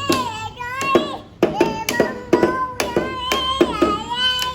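A young child singing a high-pitched melody, with sharp knocks or claps keeping a beat about two to three times a second.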